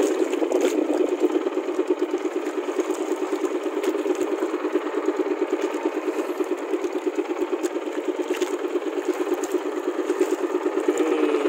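Small boat engine running steadily with a fast, even putter.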